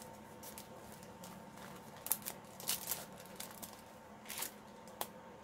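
A pink mailer envelope and its plastic sleeve being handled and opened: intermittent soft rustling and crinkling, with a few sharper crackles in the middle and near the end.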